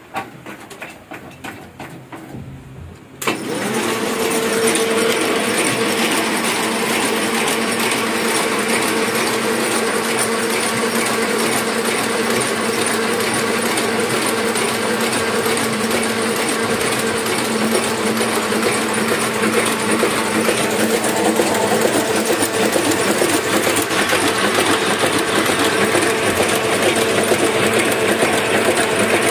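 Hamada 600 offset printing press: light scattered clicking at first, then about three seconds in the sound jumps suddenly to the press running at speed, a loud, steady mechanical clatter over a steady hum.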